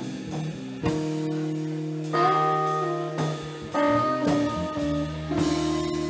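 Live band of two electric guitars, electric bass and drum kit playing, with long held guitar notes that bend in pitch and several cymbal crashes.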